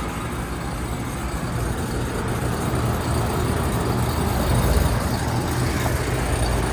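2017 2-ton Nordyne central air-conditioner outdoor unit running with a steady low hum. Nothing is blowing out of the top and the unit is freezing up.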